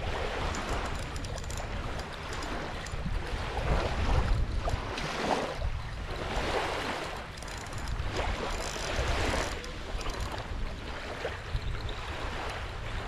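Small waves washing and lapping at the shoreline, swelling and falling every couple of seconds, with wind rumbling on the microphone.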